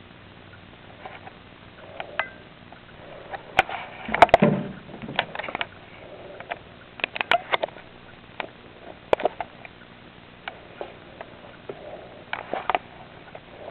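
Irregular small clicks and rustles from a gerbil's cage of shredded bedding, with a louder cluster of knocks and rustling about four seconds in.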